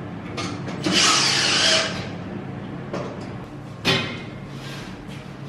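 Cordless drill running in one short burst of under a second, about a second in, followed by a single sharp knock of metal or tool handling a few seconds later.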